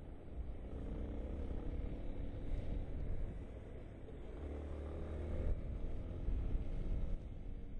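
Yamaha XTZ 250 Ténéré's single-cylinder four-stroke engine running at low revs, a steady low rumble that swells a little twice.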